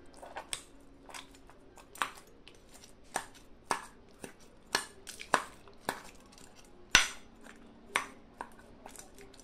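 Metal spoon clinking and scraping against a white bowl while mixing and mashing roasted tomatoes, garlic and red chillies: about a dozen sharp, irregular knocks, the loudest about three-quarters of the way through.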